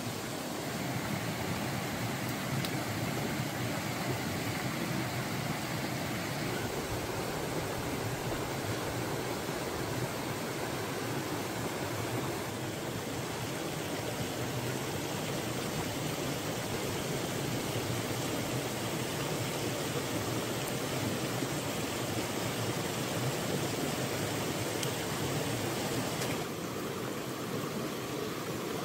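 Steady rush of running water, shifting slightly in tone about six seconds in and again near the end.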